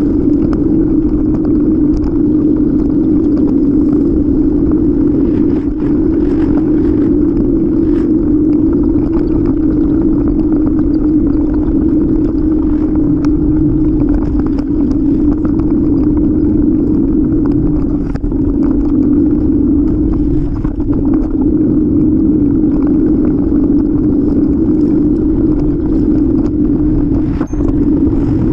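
Steady, loud wind noise on the microphone of a camera on a moving bicycle in strong wind, with scattered faint clicks and knocks.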